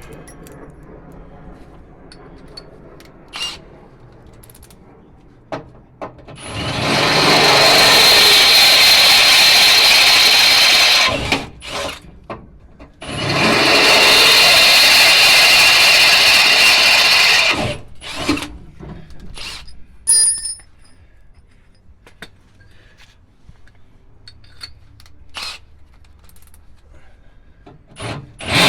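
Power drill boring into steel, run twice for about four seconds each, with clicks and knocks of handling between.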